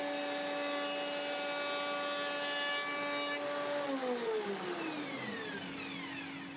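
Table-mounted router with a rebating bit running at speed, then switched off about four seconds in and spinning down, its whine falling steadily in pitch. A dust extractor's steady hum carries on beneath.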